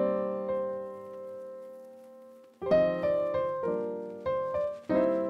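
Background piano music: a chord struck and left to fade for about two and a half seconds, then a run of single notes and chords struck about every half second.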